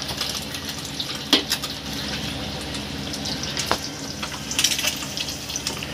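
Whole boiled eggs sizzling in hot oil in a kadai as they fry golden. A metal spatula clicks sharply against the pan twice.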